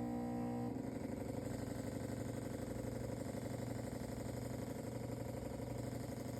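DeLonghi Magnifica S espresso machine running water through after a repair. Its pump gives a steady buzz that changes about a second in to a rougher, rapidly pulsing drone.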